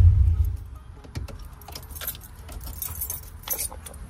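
1988 box Chevy's engine shut off, its low rumble dying away within the first half second, followed by the keys on the ignition key ring jangling with scattered clicks and rattles.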